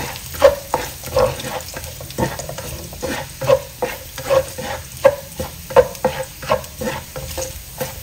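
Chopped garlic sizzling in hot oil in a nonstick wok, stirred with a spatula that scrapes and knocks against the pan about once a second over a steady frying hiss.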